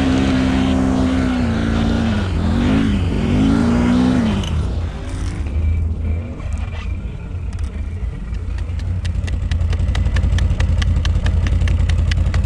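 Off-road vehicle engine revving up and down twice, then easing off after about four seconds to lower running over a steady low rumble. Over the last few seconds a fast, regular clicking joins in.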